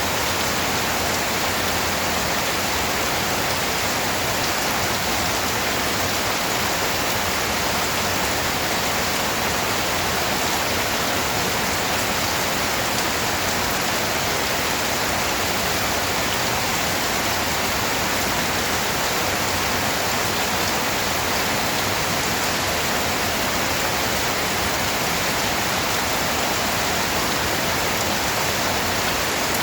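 Steady rain falling on a surface, a dense even hiss of drops with no breaks or distinct impacts.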